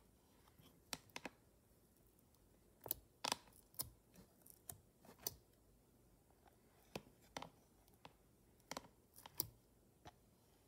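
Irregular sharp plastic clicks and taps in small clusters, from a makeup applicator tapping and scraping in a glitter eyeshadow palette with a clear plastic lid. The loudest clicks come about three seconds in and again near the end.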